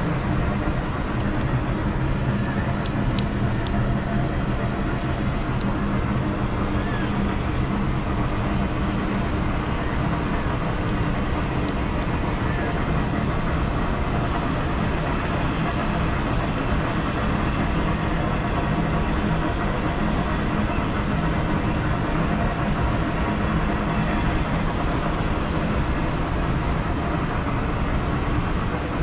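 Steady rushing of flowing water, with a few faint clicks.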